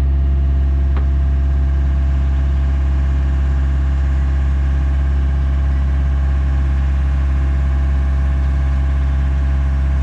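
The engine of a construction machine running steadily at an even speed, with one short click about a second in.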